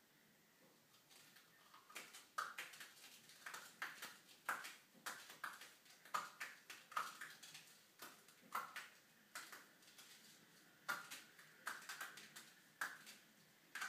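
A cat's claws scratching and raking a door mat in short, irregular strokes, roughly two a second, starting about two seconds in, with a brief lull later on.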